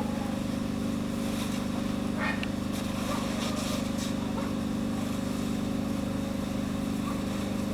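Steady low engine hum that holds level throughout, with faint scattered crackles on top.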